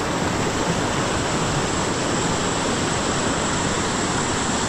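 Flowing stream water rushing steadily, an even unbroken hiss.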